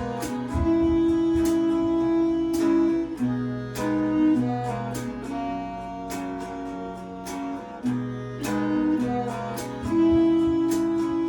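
Instrumental passage of an indie-folk song: acoustic guitar strumming steadily, about twice a second, over long held notes, with no singing.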